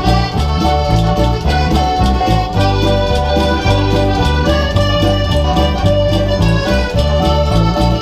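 Two accordions playing a lively traditional dance tune together, backed by an electric bass guitar and a keyboard, with a strong bass line moving under the melody.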